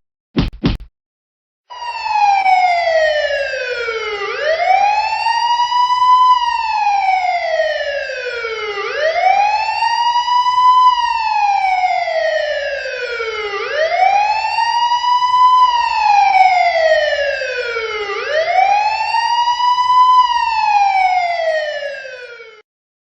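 Police car siren in a slow wail, its pitch sliding down and back up about every four and a half seconds. It starts about two seconds in and cuts off near the end.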